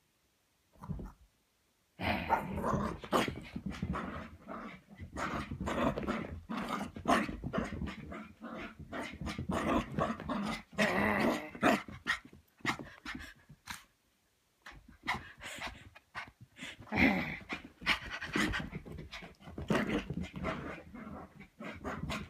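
A cavapoo puppy panting hard and scuffling on carpet while it tears around in a bout of zoomies. The sound is irregular, with many short sharp strokes, starting about two seconds in and pausing briefly about two-thirds of the way through.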